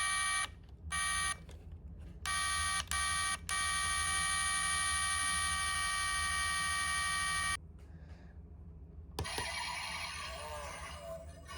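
Electronic sound effect from the diecast model car's sound unit: a steady beeping tone sounded in four short blasts, then held for about four seconds. About nine seconds in, an engine-like sound effect starts.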